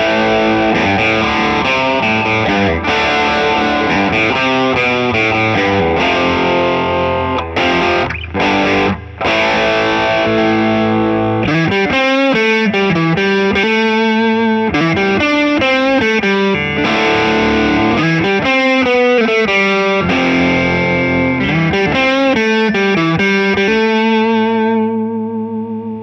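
1970 Gibson ES-330 hollow-body electric guitar with P-90 pickups, played with an overdriven tone. It plays chords for about the first ten seconds, with a couple of short breaks, then a lead line of single notes with vibrato, the last note ringing and fading near the end.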